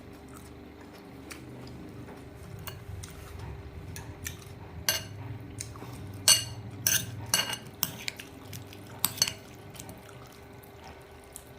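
Cutlery clinking and scraping against a dish while eating salad: a scatter of sharp, ringing clinks, thickest between about four and nine seconds in.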